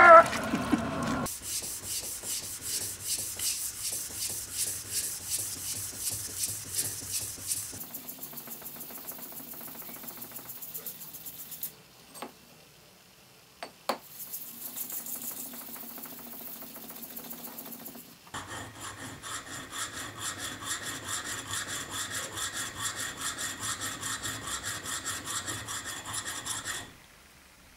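Spring-steel plane blade, made from a truck leaf spring, rubbed back and forth flat on abrasive paper over a stone slab and then on a diamond sharpening plate to flatten and hone it. It makes rhythmic scraping strokes, with a short pause and a couple of clicks near the middle.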